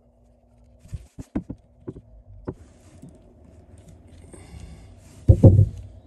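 Wire crimping tool and butt splice connector being handled while splicing a boat's power wire: a run of sharp clicks and taps, some rustling, then a loud clack near the end as the splice is crimped.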